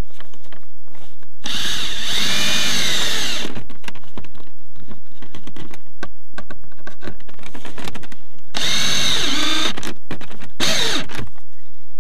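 Cordless drill driving a screw into a plastic interior trim panel, its motor whining up and down in pitch. It runs for about two seconds, stops, runs again for over a second, then gives one short last spin.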